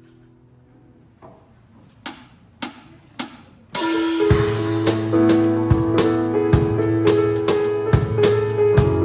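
A soft held keyboard chord, then three separate drum hits a little over two seconds in. About four seconds in, the full worship band comes in: a drum kit keeping a steady beat over held bass and keyboard notes.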